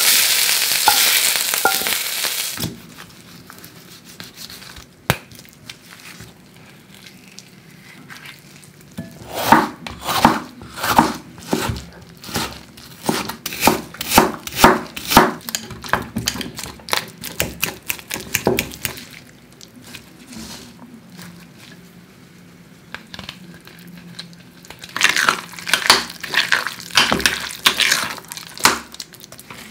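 Hot fried onions and mushrooms sizzling as they are tipped from a frying pan onto a plate; the sizzle cuts off after about two and a half seconds. Then a knife dices a red onion on a wooden cutting board, about two chops a second for some ten seconds. Near the end, avocado is mashed and stirred in a glass bowl in a quick, irregular run of squelching strokes.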